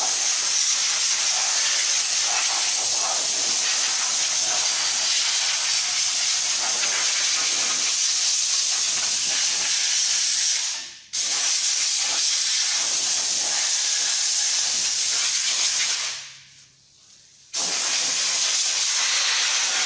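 Compressed-air paraffin gun spraying a penetrating-oil mix in a steady, loud hiss. The spray stops briefly about halfway through, and again for over a second near the end, each time starting up again abruptly as the trigger is pulled.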